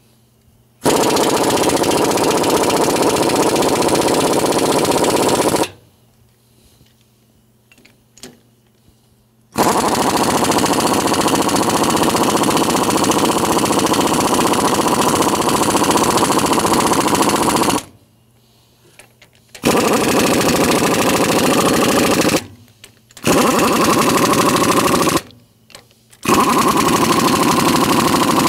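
Pneumatic impact wrench hammering in five separate bursts, two long and three short, with pauses between, as it runs bolts down on a high-pressure pump during reassembly.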